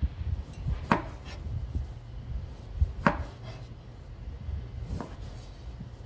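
Kitchen knife slicing through a lime and striking a plastic cutting board: three sharp cuts about two seconds apart, over a low steady rumble.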